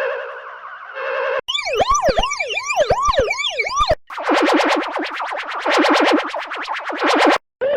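Edited siren sound effects: a steady pitched blare for about a second and a half, then a police siren in fast rising-and-falling sweeps layered at several pitches, then a rapid pulsing warble of about nine pulses a second that cuts off abruptly near the end.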